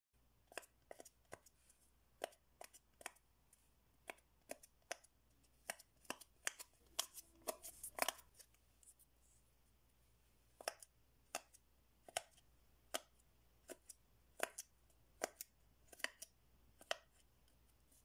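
Fingers pushing in the bubbles of a homemade pop-it fidget toy made from glove fingertips set in a blue sheet, giving a run of small sharp pops, about two a second and bunched closer together about seven to eight seconds in.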